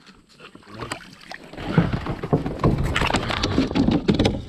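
Water splashing and sloshing at the surface, mixed with sharp clicks and knocks, getting much louder about two seconds in: the commotion of a largemouth bass striking a topwater frog lure and thrashing.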